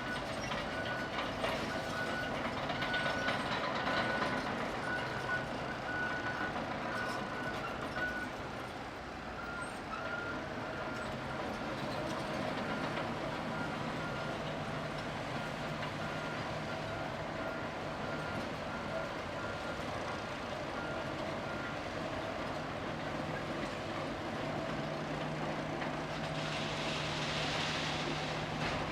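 Caterpillar bulldozer's diesel engine running steadily with a backup alarm beeping in a regular on-off pattern; the beeping stops about three-quarters of the way through while the engine runs on.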